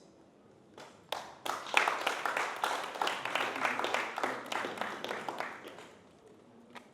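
Applause from a group of people clapping, starting about a second in and dying away near the end.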